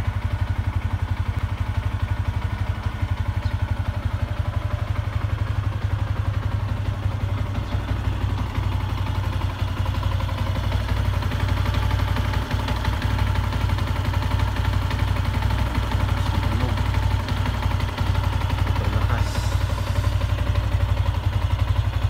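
Yamaha Sniper 150 MX's single-cylinder four-stroke engine idling steadily, heard close to the engine, with a clattering tick in its running. This is the 'lagatok' (clack) that others say it has, which the owner holds to be the bike's normal sound.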